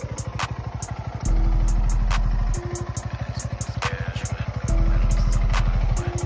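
SYM VF 185's single-cylinder four-stroke engine idling with a fast, even pulse. A deep low hum swells in twice for about a second and a half each time, then drops away.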